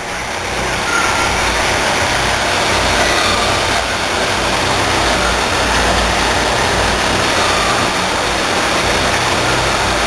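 Steady rushing, rumbling noise coming up from a drain beneath field manhole covers, with a few faint, brief whines that wander in pitch, typical of some kind of water-flow control in the drain.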